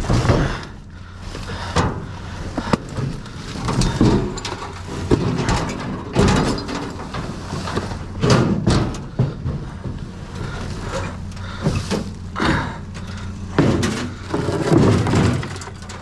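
Junk being handled and shifted in a dumpster, including a piece of a wooden-topped desk: irregular knocks, thuds and scrapes, several of them sharp, over a steady low hum.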